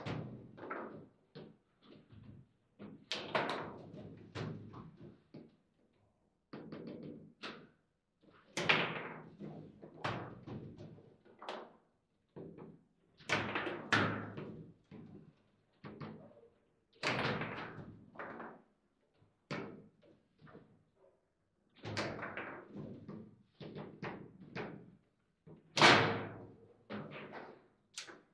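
Table football in play: irregular sharp knocks and clacks as the ball strikes the plastic figures and the table, and the rods are jerked and banged, in quick clusters with brief pauses. One especially loud knock comes near the end.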